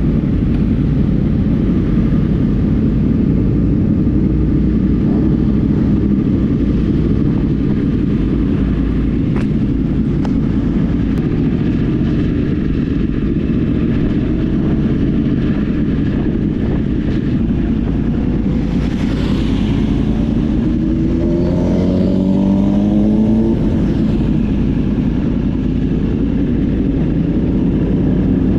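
Sport motorcycle's engine running over a steady low rumble as the bike rolls off slowly; about 21 seconds in its pitch rises in a few steps as it accelerates through the gears, and rises again near the end.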